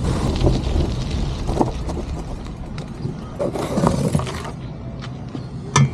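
Bicycle rolling to a stop, with a low wind and road rumble on the bike-mounted camera's microphone, then clattering knocks as the rider gets off and handles the bike, and one sharp click near the end.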